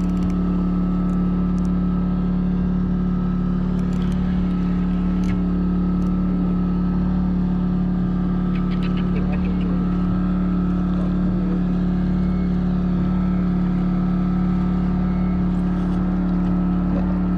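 A boat's engine running steadily at constant speed: an even hum with a strong low tone, with a few faint clicks over it.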